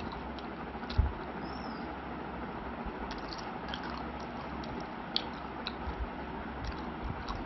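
Close-up eating sounds: fingers picking at curry-soaked chicken on a plate and chewing with the mouth closed, giving scattered small clicks and wet smacks over a steady background hiss. A sharper thump comes about a second in.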